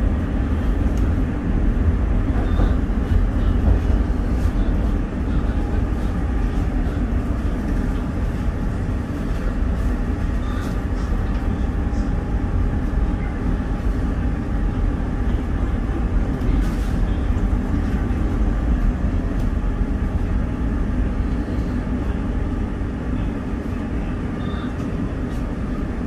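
Market-Frankford Line elevated train running on its track, heard from inside the car: a steady low rumble of wheels on rails, a little louder in the first few seconds, as it pulls into a station.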